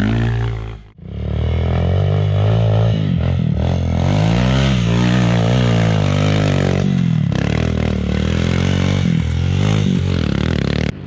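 Off-road motorcycle engine revving hard, its pitch rising and falling again and again as the rider works the throttle through deep mud. There is a brief drop-out about a second in.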